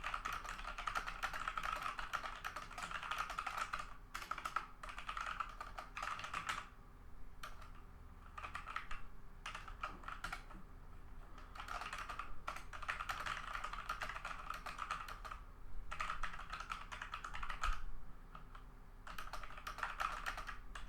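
Typing at a regular pace on a Logitech G413 mechanical keyboard with Romer-G tactile switches: a steady patter of key clicks in runs of a few seconds, broken by short pauses.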